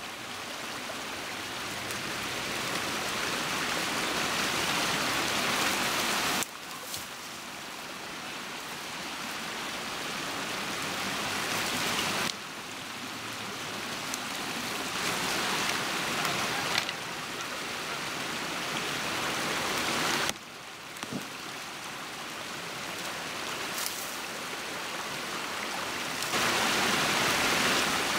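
Water rushing through a breach torn in a beaver dam. It is a steady noise that drops suddenly three times and slowly builds back up after each drop, with a few faint clicks.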